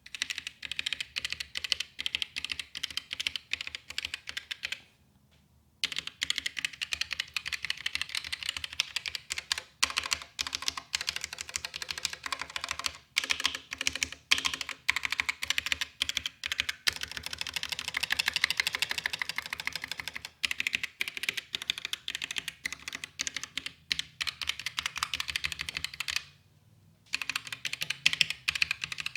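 Typing on a ROCCAT Vulcan TKL mechanical keyboard with Titan Linear switches: a rapid, steady run of keystrokes, pausing briefly about five seconds in and again near the end.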